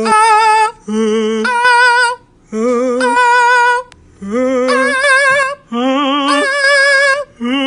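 Two voices trading long, wavering sung notes back and forth, a lower note answered by a higher one, like a vocal warm-up exercise. About five held notes, each roughly a second long, with short breaks between them.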